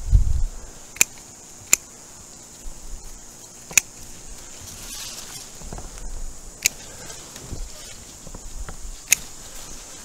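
Garden clippers snipping through sweet potato vines: five sharp snips spaced one to three seconds apart. A low thump right at the start is the loudest sound.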